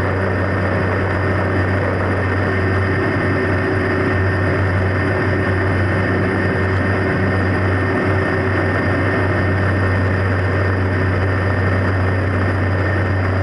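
Cessna Caravan's PT6A turboprop engine and propeller running at steady power: a deep, even propeller drone over a constant rushing noise.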